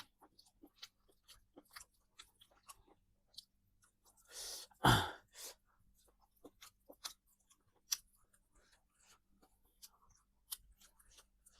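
A person chewing and eating: scattered small mouth clicks and crunches, with one loud breathy huff, like a sigh or sniff, about four and a half seconds in.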